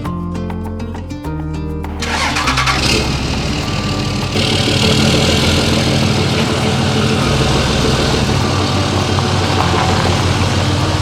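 Background music: a song that starts with sustained chords, then swells into a full band about two seconds in and gets louder again about four seconds in.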